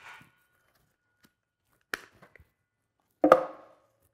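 A DeWalt cordless circular saw being handled after a cut: the last of the blade's spin-down fades out at the start, then a light click about two seconds in and a sharper knock about a second later.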